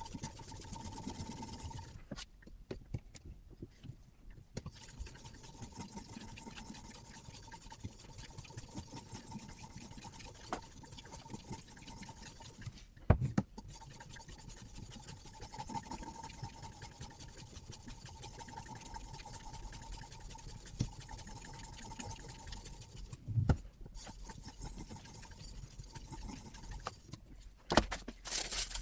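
Sharpening stone scraping along a knife edge on a guided sharpening system, with a faint steady tone underneath and a few sharp knocks, loudest about halfway through and near the end.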